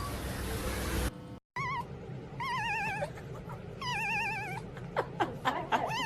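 Cat making long, wavering yowls, several in a row, with a few short sliding meows between them near the end.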